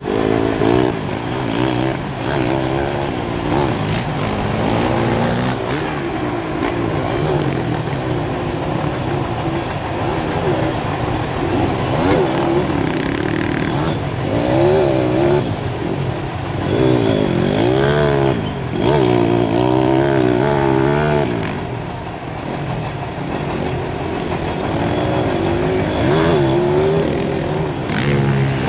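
Kawasaki KLX110 pit bike's small four-stroke single engine running on a dirt track, its pitch climbing and dropping again and again as the rider revs it and backs off through corners and jumps.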